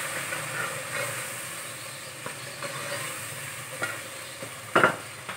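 Onion-tomato masala with spices sizzling in oil in an aluminium pot while a wooden spatula stirs and scrapes through it, with one sharper knock about five seconds in.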